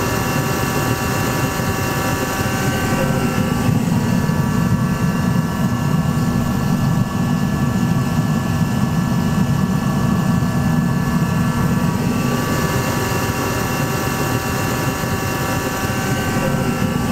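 Diesel forced-air heater (diesel cannon) running steadily: a loud, even drone with a constant pitched hum over it. Its low part grows louder from about three seconds in and eases back near twelve seconds.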